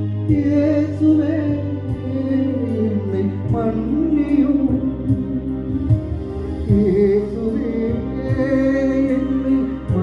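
Devotional hymn: a voice singing a slow melody with held notes over a steady instrumental accompaniment.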